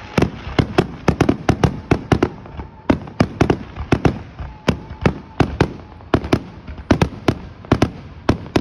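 Fireworks going off in a rapid barrage: sharp bangs several times a second, irregularly spaced and overlapping.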